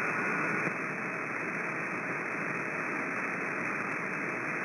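Steady hiss and static from a CB radio speaker between transmissions, squeezed into the radio's narrow audio band.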